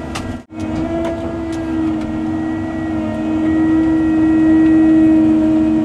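Cat 309 excavator's diesel engine and hydraulics working under load, a steady droning hum, with a brief dropout about half a second in.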